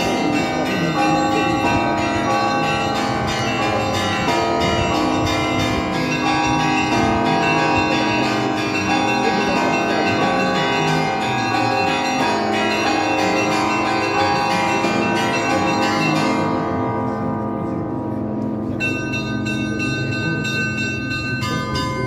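Bells in a belfry of St Isaac's Cathedral pealing: several bells of different pitches struck in quick succession, their tones ringing on over one another. About three-quarters of the way through the ringing thins out briefly before fresh strikes come in.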